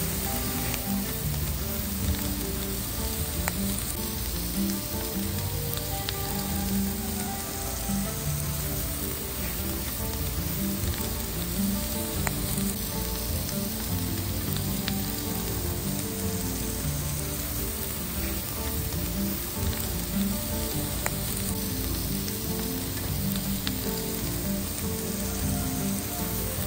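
Thin slices of meat sizzling steadily on a hot portable griddle, with a few faint clicks.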